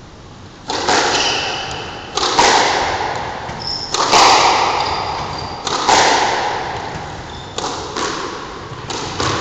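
Squash ball being struck by rackets and hitting the court walls in a rally: a sharp crack about every one and a half to two seconds, six in all, each ringing out in the court's echo.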